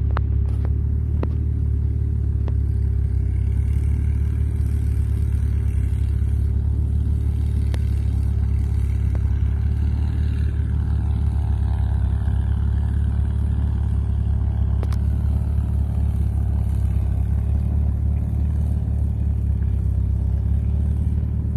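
Loud, steady drone of a light aircraft's engine and propeller running, heard inside the cockpit of a 1967 Citabria 7GCAA.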